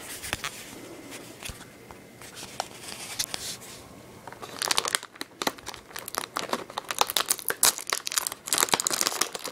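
Plastic Oreo cookie wrapper crinkling and crackling as it is wrestled open by hand, its resealable pull tab having refused to lift. Lighter crinkling at first, then loud, dense crackling from about halfway through.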